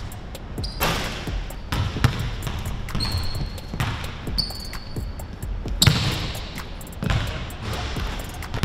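A basketball bouncing on a hardwood gym floor in irregular dribbles, with several short high squeaks of sneakers on the floor.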